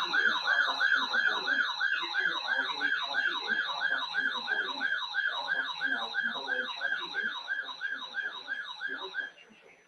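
Electronic siren-style alert tone: a fast, repeating falling warble, about three sweeps a second, that cuts off near the end. It signals an incoming severe thunderstorm warning on the weather radio.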